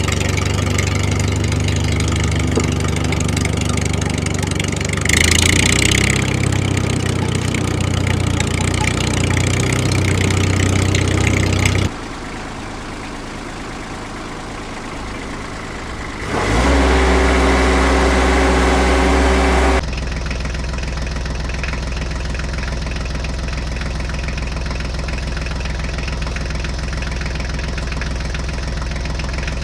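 Vehicle engines running at a steady idle, cutting abruptly from one engine sound to another several times.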